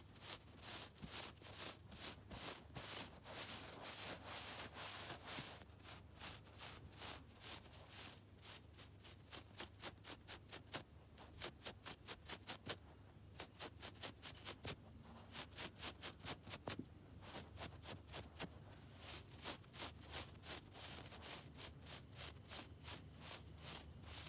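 Long fingernails scratching and rubbing the fluffy pile of a shaggy rug in quick, repeated strokes, a few each second, in soft runs.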